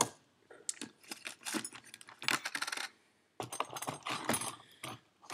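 Small metal turbo rebuild-kit parts clinking and rattling as they are picked through by hand on a workbench: two runs of quick, light metallic clicks with a short pause between.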